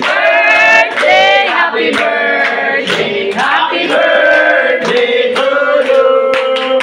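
A group of people singing together, ending on a long held note.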